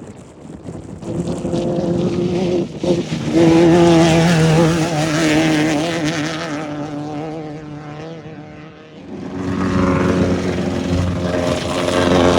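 Off-road race vehicles running past at speed, one after another: the first engine builds, is loudest about four seconds in and fades away, and a second one comes up loud near the end.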